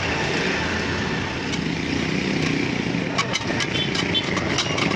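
Steady engine-like drone, with a run of sharp metallic clicks and rattles in the second half from the gears and chain of a hand-cranked sheet metal rolling machine as it turns.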